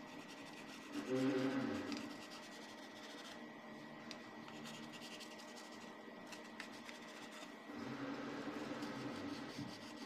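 Kitchen knife cutting through a cheese-topped cabbage pie on a wooden cutting board, the blade rubbing and scraping against the board, loudest about a second in and again near the end.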